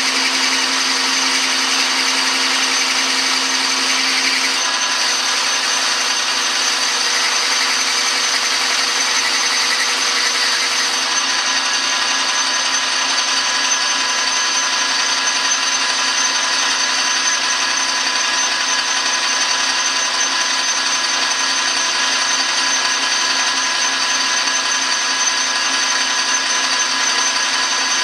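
Metal lathe running steadily while a carrbide tool takes a roughing cut on a metal bar, a steady machine whine made of several tones. The sound shifts slightly about four and a half seconds in and again about eleven seconds in.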